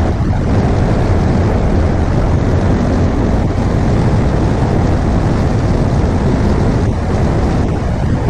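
BMW R1200GS Adventure flat-twin engine running at a steady road speed, mixed with wind rushing over the microphone. Loud and even, with no revving or gear changes.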